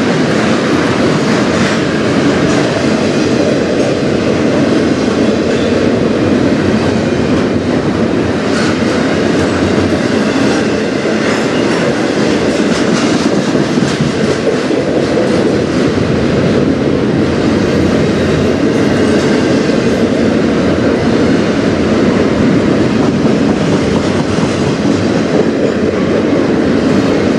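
Double-stack intermodal well cars rolling past close by: a steady, loud rumble of steel wheels on rail with scattered clicks from the wheels and joints.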